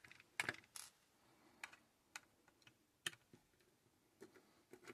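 Faint, irregular small clicks and taps of a screwdriver and small screws being worked on the casing of a solar charge controller during disassembly, with a short cluster of sharper clicks about half a second in.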